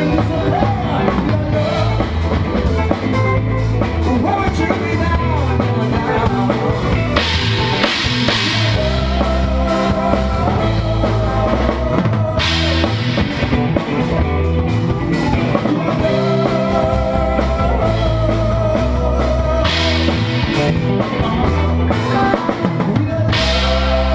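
Live rock band playing, with the drum kit keeping a steady beat under a moving bass line and a wavering lead line.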